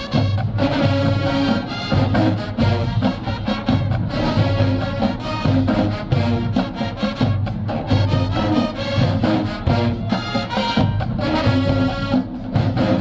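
Brass band playing, with trumpets and trombones over a steady beat and heavy low bass notes.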